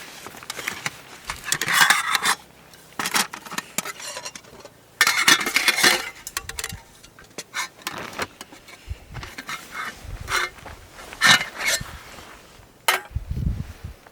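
Metal camp cookware and utensils being handled: irregular clinks and knocks with a few longer scrapes, and a sharp clink near the end.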